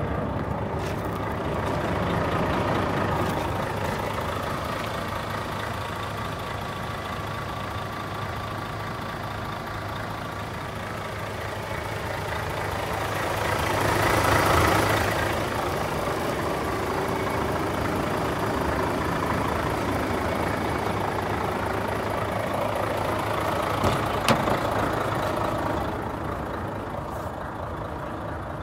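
Volvo FH500's 13-litre straight-six diesel idling steadily. A rush of noise swells and fades a little before halfway, and a sharp knock comes later.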